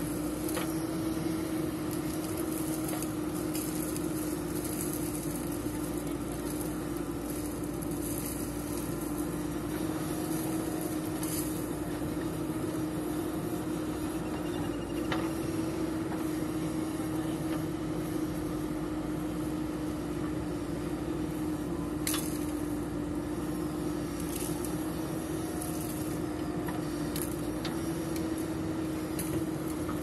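Diesel engine of a JCB 3DX Eco backhoe loader running steadily while the backhoe digs soil, with a few faint brief knocks.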